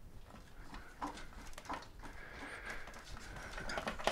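Light scattered clicks and knocks of hands handling a mobility scooter's tiller assembly, with a quick run of clicks near the end.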